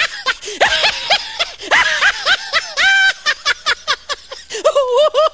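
High-pitched laughter in quick runs of short 'ha-ha' syllables. There is a long run over the first three seconds, a pause, then another burst near the end.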